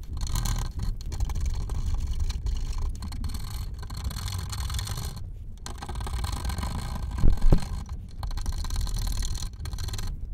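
Steel card scraper scraping old finish off the end grain of a wooden chair joint in repeated hand strokes with short pauses between them. A couple of brief louder knocks come about seven seconds in.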